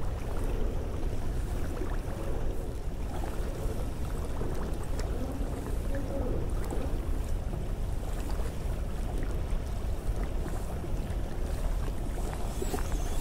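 Steady low rumble of wind on the microphone, with faint lapping water.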